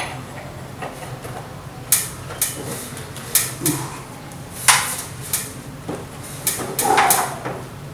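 Metal spanner clinking and knocking against a tight nut on an air conditioner's pipe connection: several sharp, irregularly spaced clanks over a low steady hum.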